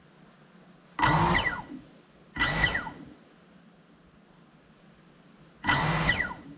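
Brushless motors of a GEPRC Cinelog 35 6S FPV drone lying still on the floor after a crash, spun up in three short bursts, each dying away with a falling whine.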